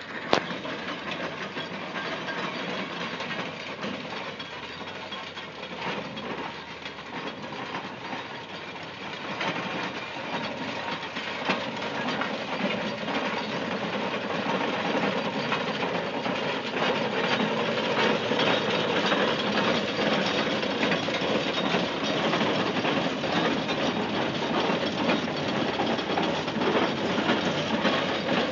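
Vintage steam road roller running along a road, its steam engine working steadily, growing louder as it approaches and passes.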